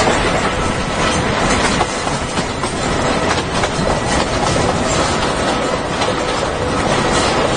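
CRH2 Hexie high-speed electric multiple unit passing close by at speed: a steady loud rush of wheels on rails, with repeated clicks as the bogies run over rail joints and switches.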